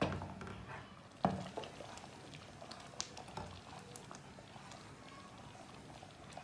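Wooden spoon stirring thickening tomato ketchup in a non-stick pan, with a few sharp knocks of the spoon against the pan, the loudest about a second in, over faint bubbling of the simmering sauce.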